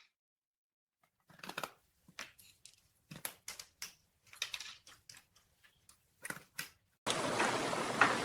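Scattered light taps and clicks, sparse and irregular, after a second of silence; about seven seconds in, a steady faint room hiss comes in.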